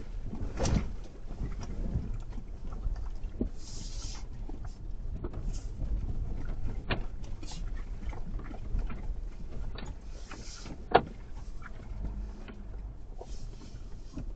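A vehicle on the move: a steady low rumble with scattered knocks and clicks, and one sharp knock about eleven seconds in.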